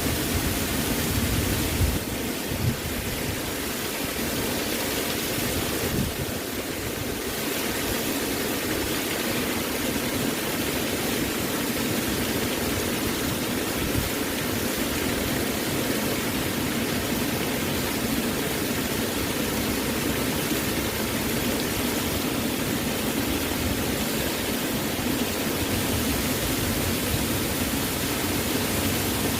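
Waterfall, a steady rushing roar of falling water with no change in level.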